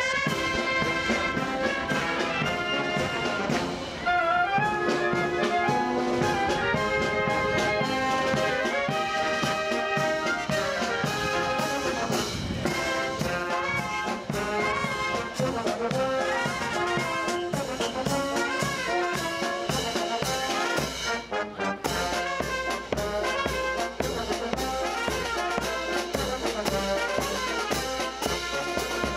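A naval marching band playing a march: trumpets, trombones, euphoniums, clarinets and sousaphones over snare drums, cymbals and bass drum keeping a steady beat. The music dips briefly about three-quarters of the way through while the drums carry on.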